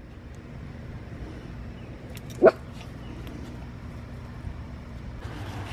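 A small puppy gives a single short, rising yip about halfway through, over a steady low background rumble that grows louder near the end.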